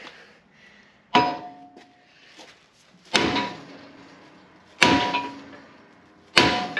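Four heavy hammer blows on a steel driver tool, roughly one every one and a half to two seconds, each with a short metallic clang and ring, knocking out an old bushing.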